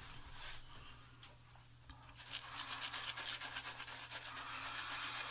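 Badger-hair shaving brush scrubbing soap lather onto a stubbly face in quick strokes, the scratchy brushing starting about two seconds in, after a few faint clicks.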